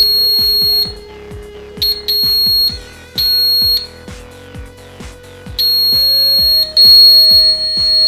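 Active piezo buzzer sounding a loud, steady high-pitched tone that cuts in and out in irregular bursts of a fraction of a second to about two seconds. It stops whenever the relay's coil gets power, because the relay then opens the normally closed contacts that feed the buzzer.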